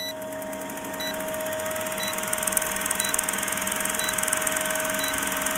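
Old-film countdown sound effect: a film projector's steady rattle and hiss with a constant hum, and a short high beep about once a second as the numbers count down.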